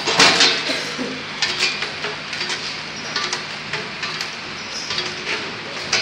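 Packaging-line hopper conveyor running with a steady hum and scattered light metallic ticks and clatter. A short hiss of air comes from a pneumatic cylinder just after the start and again at the end.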